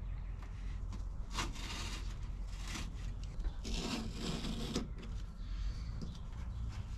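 Carpet rubbing and scraping against the foam-insulated camper-shell roof as it is pressed and smoothed into place by hand, in a few short scraping passes, the longest lasting just over a second around the middle. A steady low rumble runs underneath.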